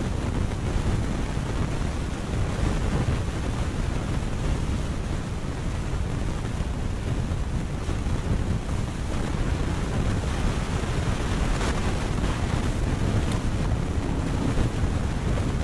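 Wind blowing across the microphone: a steady low rush with no let-up.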